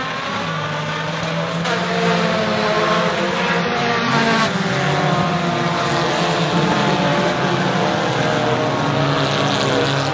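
A pack of U-car class dirt-track race cars running at speed, several engines at once with overlapping pitches rising and falling as the cars go through the turns.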